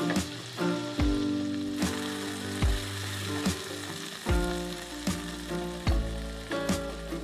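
Tomatoes and onion sizzling as they fry in oil in a pan. Background music plays over it with held notes and a steady beat a little faster than once a second.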